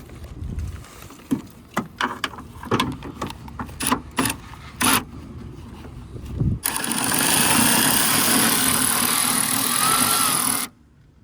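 Sharp clicks and knocks of tools and parts being worked inside a car door. Then, about six and a half seconds in, a loud steady rushing noise starts and runs for about four seconds before cutting off abruptly.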